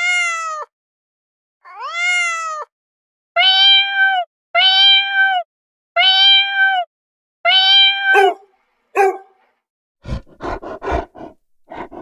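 A domestic cat meowing, about six drawn-out meows in a row: the first two rise and fall in pitch, the next four hold a steady pitch, followed by two short calls. In the last two seconds a different animal sound starts, a fast run of short, deep pulses.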